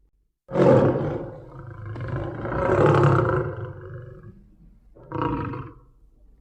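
Lion roaring: a loud roar starts about half a second in, swells again near the middle and fades out, followed by a shorter call about five seconds in.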